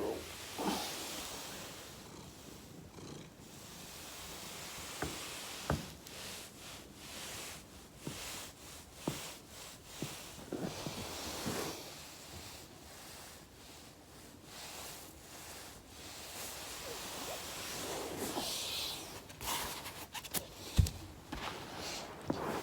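Foam rolling on a person's back: the rustle and rub of the roller against body and floor, with breathy exhales. Several sharp pops of joints cracking stand out, the loudest about 21 seconds in.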